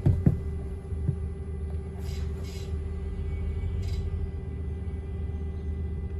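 Low rumble of a Wrightbus New Routemaster bus heard from inside the passenger saloon, with a steady tone held throughout. A couple of knocks come at the start and another about a second in.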